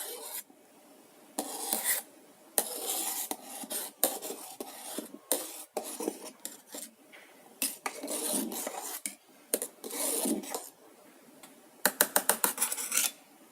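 A metal spoon scraping and stirring around the bottom of a steel electric kettle of boiling milk in irregular strokes, keeping the thickening milk from sticking to the base. Near the end comes a quick run of about ten light metal taps.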